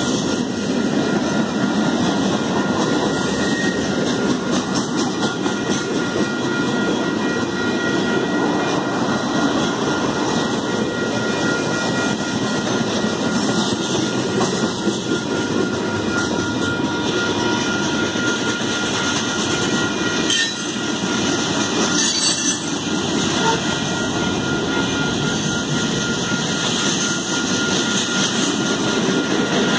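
Freight cars rolling past: a steady rumble and rattle of steel wheels on the rails, with a couple of sharper clacks about two-thirds of the way through.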